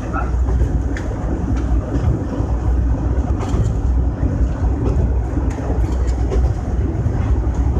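Kanto Railway KiHa 310 diesel railcar running along the track, heard from inside the cab: a steady low rumble of engine and running gear, with a few sharp clicks of wheels passing over rail joints.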